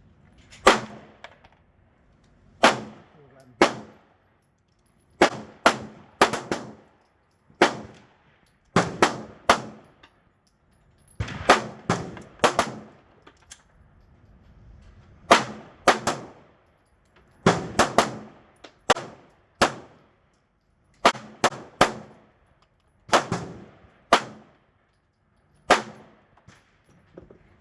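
Handgun shots fired one at a time at an irregular pace, about 28 in all, sometimes two or three in quick succession and sometimes with a second or two between them. Each shot is a sharp crack with a short ringing echo off the range walls.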